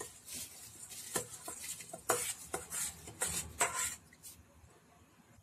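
Soaked rice being tipped from a bowl into a pot of hot chicken stock, with irregular scrapes and soft splashes that die away about four seconds in.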